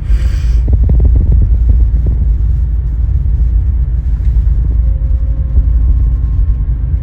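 Car ferry's engines and thrusters running in a loud, steady low rumble while the ship manoeuvres to line up with the docking ramp. A brief hiss sounds at the very start.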